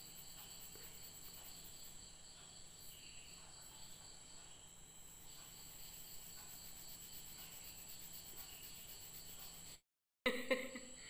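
Faint crickets: a high, thin, steady trill with a regular pulse. Near the end the sound cuts out for a moment, then a short voice sound follows.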